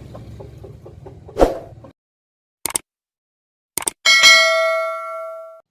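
Edited-in sound effects: a sharp hit about a second and a half in, then a few short clicks, then a bell ding that rings out and fades over about a second and a half.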